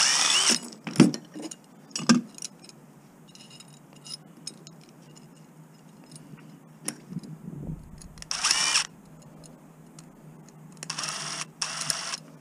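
Tools working on the metal parts of a commercial washing machine being taken apart for scrap. A short loud burst opens it, sharp knocks follow about one and two seconds in, and two more short bursts of tool and metal noise come near the end.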